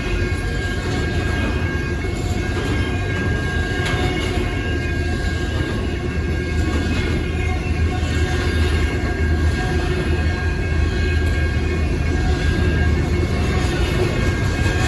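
Intermodal freight train rolling past: a steady, loud rumble of wheels on rail with a thin steady high tone above it, growing a little louder near the end.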